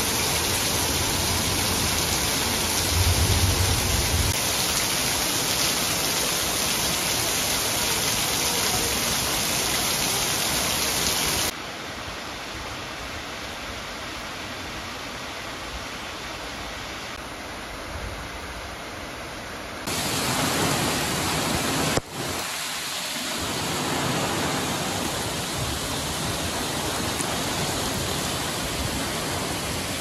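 Torrential typhoon rain pouring down as a steady hiss, mixed with muddy floodwater rushing over stone steps. A brief low rumble comes about three seconds in. The sound drops quieter at about twelve seconds, where the rushing floodwater is the main sound, and turns louder again after a sudden break some twenty seconds in, as heavy rain falls on flooded ground.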